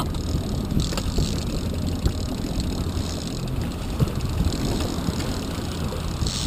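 A boat engine running steadily at slow trolling speed, with water churning in the wake.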